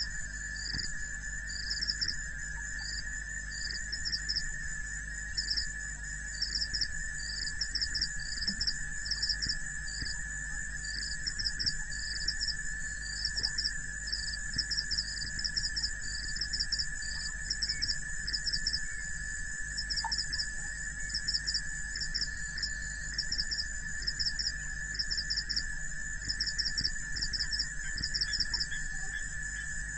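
A chorus of insects, crickets among them: high-pitched chirps in short clustered pulses repeating over a steady high drone, with a low steady hum underneath.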